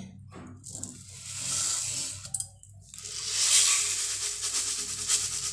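Sugar poured into a steel pot of simmering milk and rice and stirred in with a steel spatula: two stretches of gritty, scraping hiss, the first about a second in and a longer one from about three seconds on.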